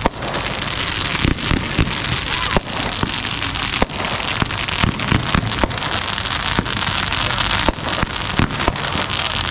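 Consumer fireworks going off overhead: a continuous dense crackle with frequent sharp bangs of bursting shells throughout.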